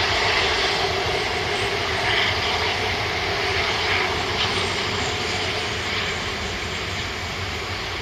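Airbus A330-243's Rolls-Royce Trent 700 turbofan engines at taxi thrust: a steady jet whine and rush that slowly fades toward the end as the airliner rolls past.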